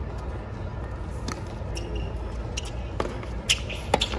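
Tennis ball knocks, the ball struck by racket strings and bouncing on the hard court, several sharp hits with the loudest two close together near the end, over a steady low stadium background.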